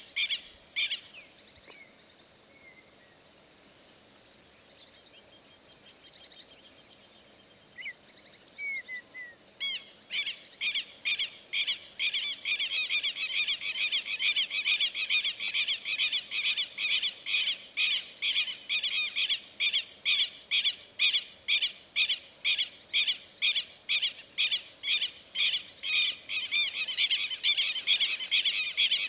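Wild birds calling: scattered faint chirps at first, then about ten seconds in a loud run of rapid repeated calls, about three a second.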